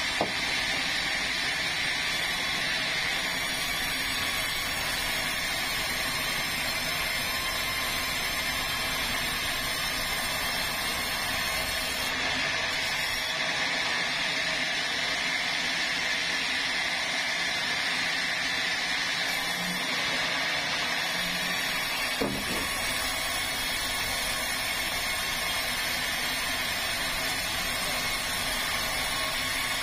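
Sawmill band saw running steadily as it rips a large red meranti log into planks. A single sharp knock about three-quarters of the way through.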